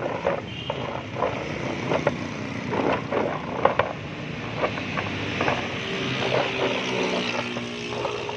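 Cut raw potato sticks clattering in a plastic tub as it is tilted and shaken, a string of irregular knocks.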